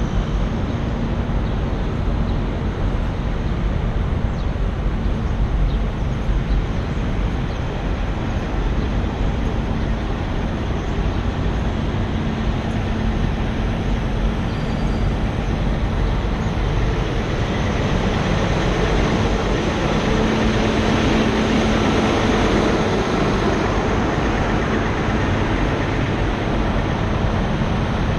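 Steady engine noise from idling semi trucks and traffic, with a steady low hum that grows louder about two-thirds of the way through.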